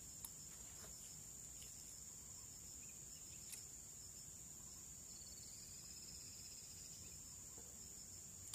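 Faint, steady high-pitched drone of insects, like crickets, with a couple of light clicks.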